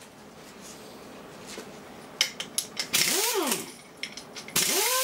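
Handheld pneumatic tool, likely an air ratchet, run in two short bursts on the nuts of the feeder frame: each time its air motor whines up, with a loud hiss of exhaust air, and winds back down. The second burst holds its speed briefly before winding down. A few sharp metallic clicks come just before the first burst.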